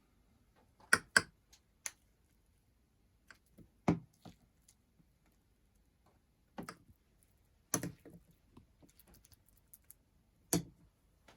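Scattered sharp clicks and knocks, about seven in all, the loudest a quick pair about a second in: dishes and utensils being handled as the meal is served.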